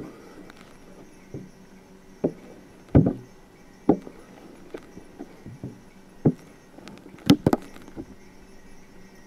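An irregular series of short, sharp knocks and taps at uneven spacing over a faint steady hum. The loudest strikes come about three seconds in and as a quick pair near seven and a half seconds.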